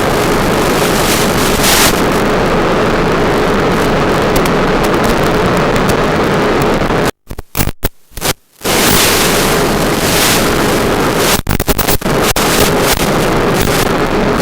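Strong wind blasting against the microphone as loud, steady rushing noise, with a faint steady hum underneath. The sound cuts out briefly several times about halfway through.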